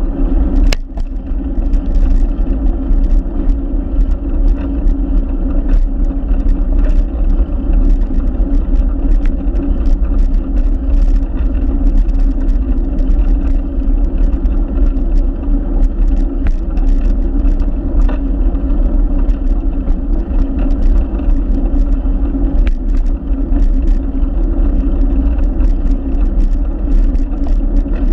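Wind buffeting and road noise on a handlebar-mounted camera moving along a paved path: a loud, steady rumble with a low hum, scattered with small clicks and rattles. A sharp click comes about a second in.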